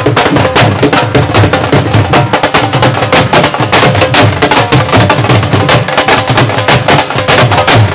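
Large barrel dhol beaten with sticks in a fast, dense rhythm: deep bass strokes pulse under rapid, sharp stick strokes. The pattern is a nine-beat (9 matra) taal.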